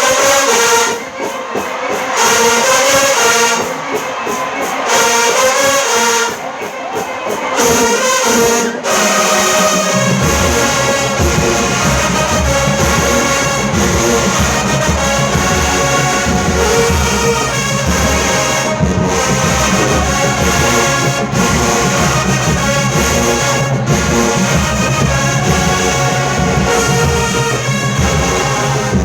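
Marching band playing: brass phrases in short blasts with pauses, then about ten seconds in the low brass and drums come in with a steady beat and the band plays on at full volume.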